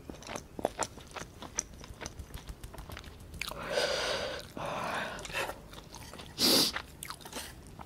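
Close-miked mouth sounds of someone eating ghost pepper noodles: small wet chewing clicks, then a long breathy exhale about halfway through and a short sharp breath near the end, blowing out against the chilli heat.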